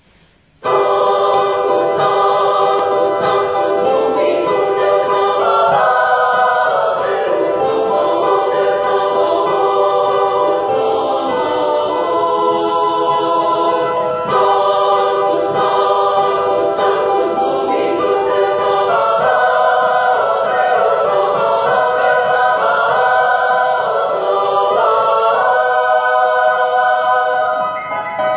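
Women's choir singing, the held chords shifting every second or two; the singing begins abruptly about half a second in.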